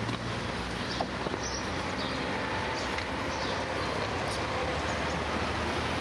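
City street traffic: the steady noise of cars passing, with one sharp click about a second in.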